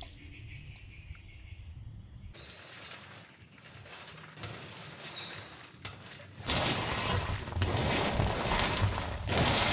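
Popped popcorn rustling and crackling as it is scooped and slid off a metal plate into a bamboo basket, much louder over the last three seconds.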